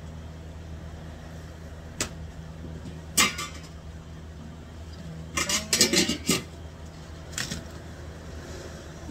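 Gloved hands working at a sandwich station: a few sharp clicks and knocks, then a burst of crisp clatter and rustling about five to six seconds in as the sauce bottle is set aside and lettuce leaves are picked up, over a steady low machine hum.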